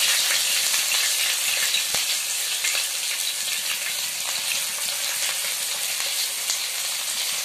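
Onion paste frying in hot mustard oil in a non-stick pan, with a steady, even sizzle and faint ticks as a wooden spatula moves through it.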